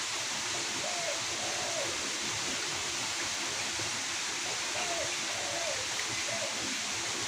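Steady rushing of flowing river water, with a bird calling faintly in short, soft notes a few times.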